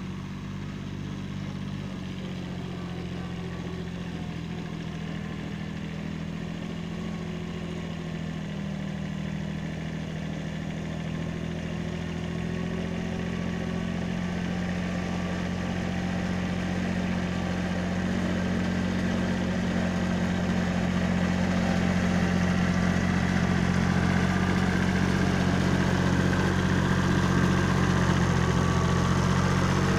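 Kubota B7100 compact tractor's three-cylinder diesel engine running at a steady pitch, getting steadily louder as the tractor drives closer and then staying loud as it passes.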